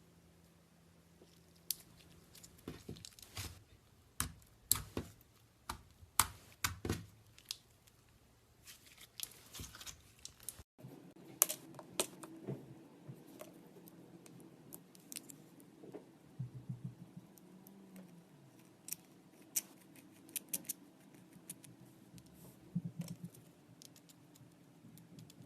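Slime being squeezed and stretched by hand, giving irregular sticky clicks, crackles and squishes. There is a cut partway through, after which the clicks are softer over a faint steady hum.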